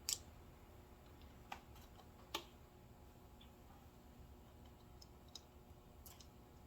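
A few short, sharp metallic clicks against near silence: small steel steering-box parts being handled and fitted, the loudest at the very start and another about two seconds later, with fainter ticks near the end.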